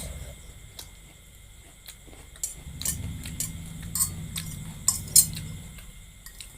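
Eating utensils clinking and scraping against a bowl of noodles: a string of sharp clicks, the loudest a little after five seconds in.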